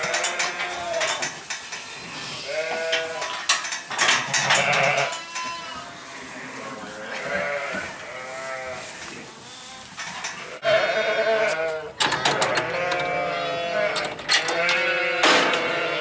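A flock of sheep bleating over and over, call after call, several at once in places, getting louder in the last few seconds.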